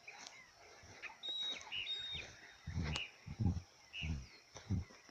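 Birds chirping and whistling, with short high whistled notes, and several low, rough bursts about every half second through the middle that are louder than the birdsong.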